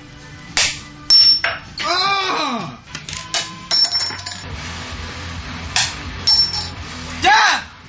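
Coins bouncing off a table into drinking glasses, making a series of sharp clinks, some followed by a high ringing of the glass. Twice, a short tone rises and then falls in pitch.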